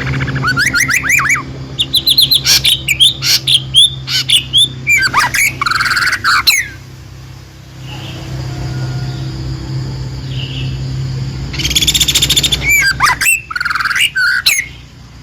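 Songbird singing in quick runs of sharp chirps and whistled notes that slide up and down, stopping for several seconds partway through, then starting again with a rapid trill and more chirps near the end. A steady low hum runs underneath.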